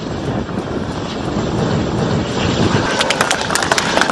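Small turbofan engine of DRDO's unmanned flying-wing aircraft running during its takeoff run, a steady rushing jet noise. About three seconds in, a rapid series of sharp clicks joins it.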